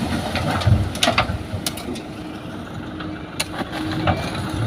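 Heavy vehicle's diesel engine running steadily, with several sharp metallic clanks over it.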